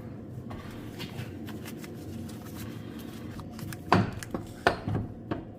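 Gearbox being worked into place under a VW T4 van: a few sharp knocks and clunks about four seconds in and again near the end, over a steady low workshop hum.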